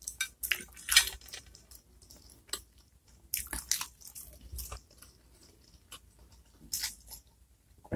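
Close-miked eating sounds: chewing and wet mouth noises in short irregular bursts, then sipping from a plastic mug near the end.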